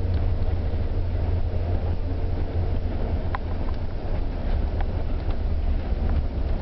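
Steady low rumble of a bus's engine and tyres on the road, heard from inside the moving bus, with a few faint clicks and rattles.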